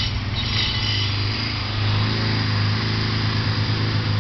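A small engine running steadily with a low hum, with a brief high-pitched sound about half a second in.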